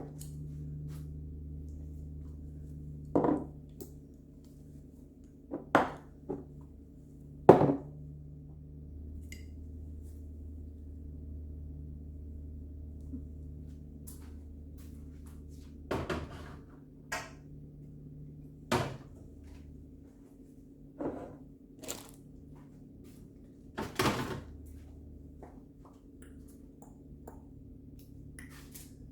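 Food containers, jars and dishes knocking and clunking as they are handled and set down, about nine or ten separate knocks. Under them runs a steady low hum whose lowest part drops away about two-thirds of the way through.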